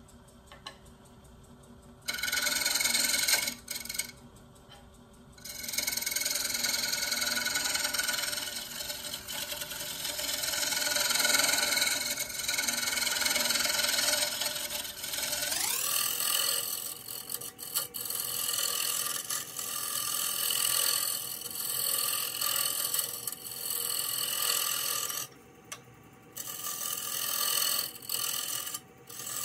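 Bowl gouge cutting into the inside of a spinning walnut-and-cherry bowl blank on a wood lathe: long stretches of shearing, scraping noise broken by short pauses, over the lathe motor's steady hum. About halfway through, the motor's hum rises in pitch and then holds as the lathe is sped up.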